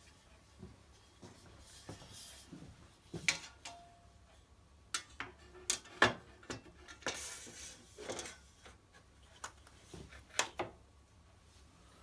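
Scattered sharp metallic clicks and clinks with short rustles: an aluminium bracket and small T-nuts being handled and fitted against the CNC router's aluminium frame. The loudest click comes about halfway through.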